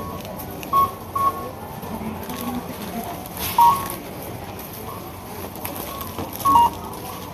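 Supermarket checkout register beeping as items are scanned: short single beeps about a second in, then two-note beeps around the middle and near the end, over steady store background noise.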